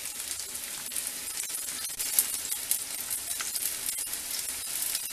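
Sliced onions, garlic and curry leaves sizzling in hot oil in a clay kadai, an even hiss with scattered crackles, while a metal spoon stirs through them.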